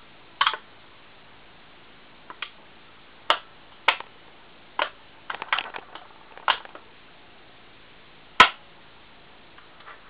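Irregular sharp clicks and taps of small metal parts being handled on an opened hard disk drive, about a dozen in all, with the loudest click near the end.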